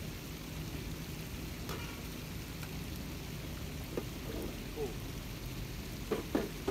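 Steady rushing noise, heaviest in the low end, with a few faint distant voices near the end.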